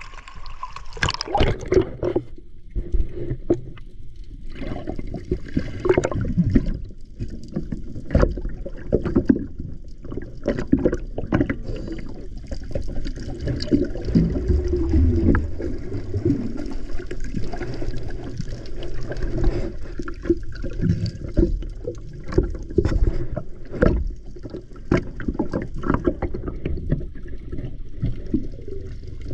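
Muffled water sloshing and gurgling heard through a camera held underwater, with frequent irregular clicks and knocks.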